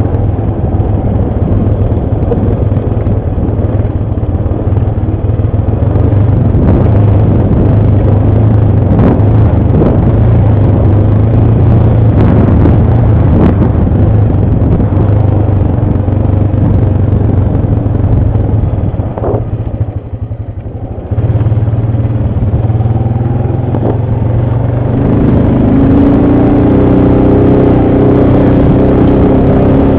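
ATV engine running steadily under load, with knocks and rattles over rough ground in the middle. About two-thirds through it eases off briefly, then picks up again and revs higher near the end.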